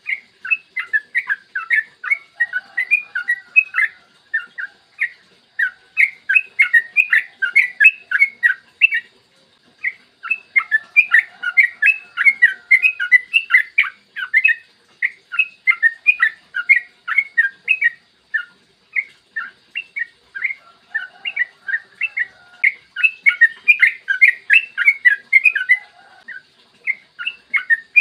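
Yellow-vented bulbul (trucukan) singing long, rapid bubbly phrases of chirped notes, each phrase a few seconds long with brief pauses between. This is a recorded lure song, played to prompt other trucukan to sing.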